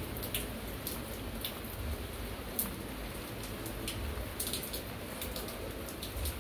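Rain falling, a steady hiss with scattered drops ticking irregularly close by.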